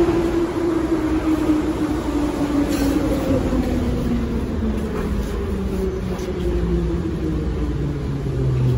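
EMA-502 metro train braking into a station, heard from inside the car: the traction motors' whine falls steadily in pitch as the train slows, over the rumble of the wheels on the rails.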